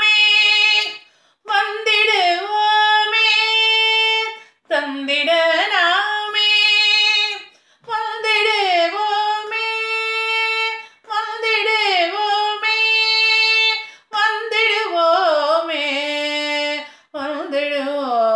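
A woman singing a Tamil song unaccompanied, in about six long held phrases with short breaks between them.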